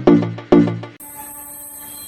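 A music beat of struck synth notes, about two a second, stops abruptly halfway through. A steady high-pitched whine and hiss of a two-head CNC router's spindles takes over.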